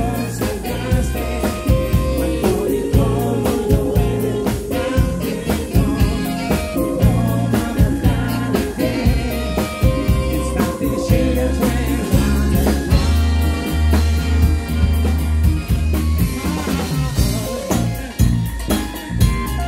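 Live funk band playing with a steady drum-kit beat, bass line, electric guitar and saxophone, and singing over it.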